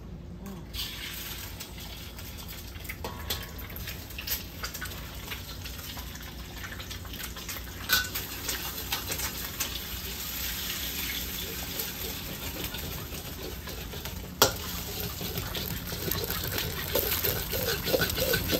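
Food frying and sizzling in a hot pan, with scattered clicks and knocks of a cooking utensil against the pan and one sharp knock about three-quarters of the way through. The sizzle grows louder near the end.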